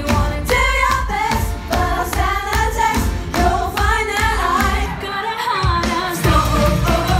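Women singing a pop number over a band with a steady, heavy beat.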